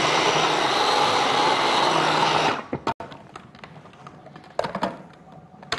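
Electric food processor running, blending a roasted red pepper and peanut dip, then switched off sharply about two and a half seconds in; a few light clicks and knocks follow.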